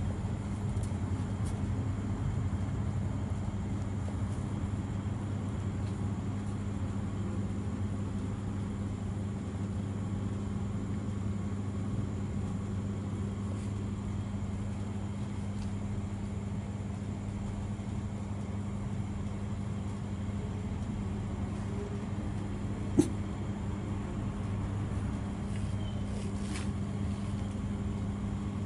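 A steady low hum, with a single sharp click late on.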